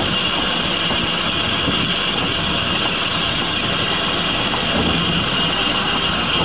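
Manning Wardle saddle-tank steam locomotive "Sir Berkeley" running along the line, heard from its front: a steady mix of wheel, motion and rushing noise without clearly separate exhaust beats.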